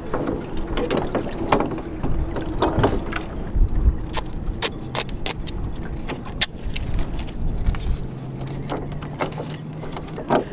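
Oars knocking and creaking in duct-taped oarlocks while a wooden dinghy is rowed, with wind rumbling on the microphone. After that comes a run of sharp crackling ticks as duct tape is pulled off the roll and wrapped around the oarlock.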